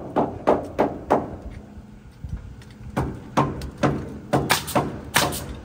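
Hammer striking nails into wooden deck framing, quick regular blows at about three a second that pause about a second in and start again a couple of seconds later.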